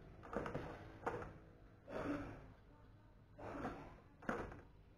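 Handling noise from the two halves of a plastic toy birdcage being turned over in the hands: about five short clicks and scrapes, two of them sharper than the rest.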